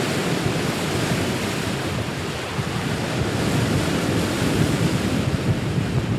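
Wind buffeting the microphone over the wash of open-ocean waves: a steady, rough, fluttering noise.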